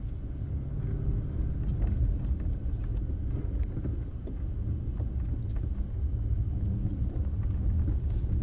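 Inside the cabin of a Lorinser-tuned Mercedes-Benz S600 with a twin-turbo V12, driving on a snowy road: a steady low rumble of engine and tyres.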